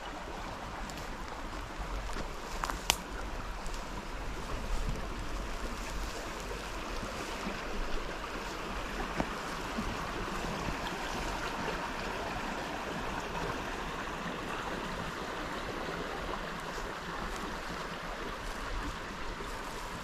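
Shallow park river flowing, a steady rushing of water, with one sharp click about three seconds in.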